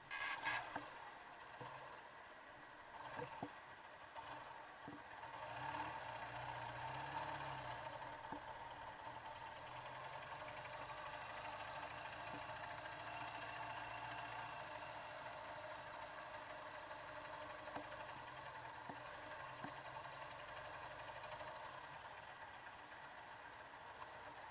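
A faint engine idling steadily, with a few light ticks.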